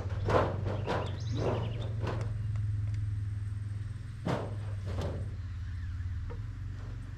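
Irregular knocks from construction work on a timber roof frame: a quick run of them in the first two seconds, then two more about four and five seconds in, over a steady low rumble.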